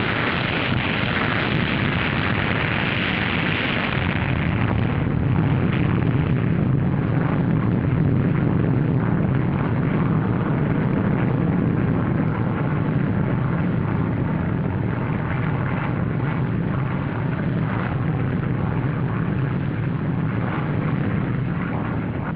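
Continuous rumbling roar of an explosion sound effect on an old film soundtrack. It is hissy for the first four seconds or so, then deeper and rumbling.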